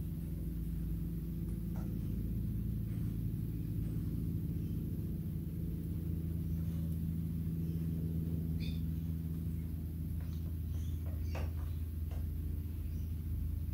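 Cat chewing dry kibble and pawing it out of a silicone slow-feeder mat: a few scattered short crunches and clicks, mostly in the second half, over a steady low hum.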